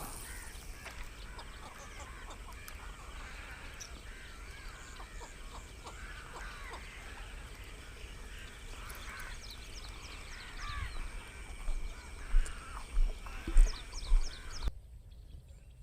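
Birds calling and chattering, with quacking, duck-like calls, over a steady high whine that cuts off suddenly near the end. Several low thumps come in the last few seconds.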